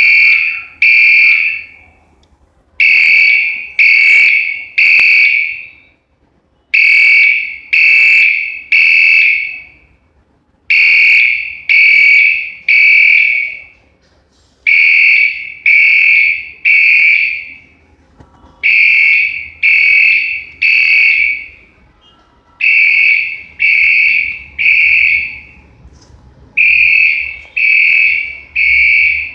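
Mircom FHS-340 fire alarm horn sounding loudly on its high-volume broadband tone in the temporal-three evacuation pattern: three short blasts, a pause, then three more, repeating about every four seconds.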